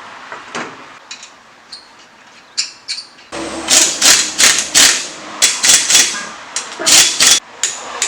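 Pneumatic impact wrench fired in a series of short, loud bursts, about two to three a second, running the lug nuts onto a wheel; light clicks and handling noise before it starts, about three seconds in.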